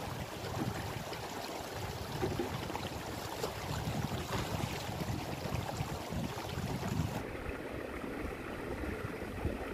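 Shallow stream running over bedrock and stones, a steady rushing of water. About seven seconds in it turns duller.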